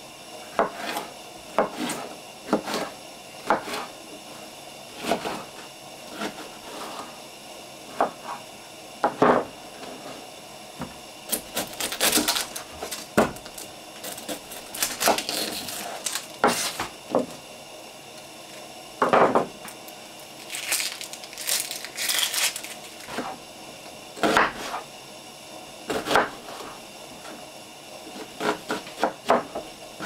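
Kitchen knife chopping bell pepper and onion on a wooden counter: irregular knocks of the blade striking the wood, some single and some in quick runs.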